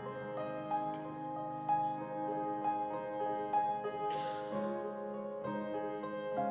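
Grand piano playing a slow, gentle accompaniment between sung lines, single notes and chords ringing on, with a brief hiss about four seconds in.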